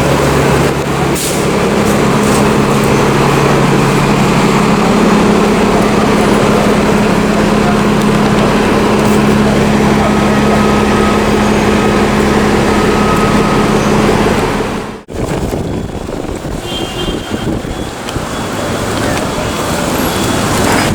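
City street traffic with a large vehicle's engine running close by, a steady hum over the road noise. About fifteen seconds in, the sound cuts off abruptly to lighter traffic noise.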